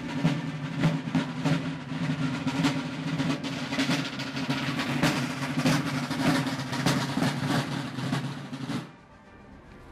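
Military field drums played together by a marching drum corps: a fast, steady cadence of strokes and rolls. It cuts off abruptly near the end.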